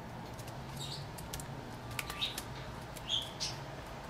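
A few light, sparse clicks and ticks of a replacement keyboard being pressed and seated into a MacBook Air top case, over a faint low hum.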